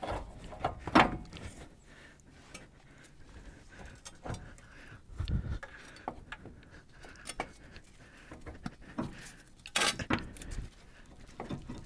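Scattered metallic clinks and knocks as a front CV axle half shaft is worked through the wheel hub, with a dull thump about five seconds in and a sharper knock near the end.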